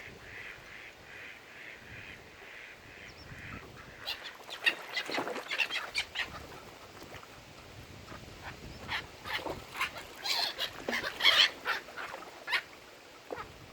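Mallard ducks quacking. A soft, quick run of pulsing calls comes first, then from about four seconds in a string of loud, sharp quacks in rapid series, which dies down near the end.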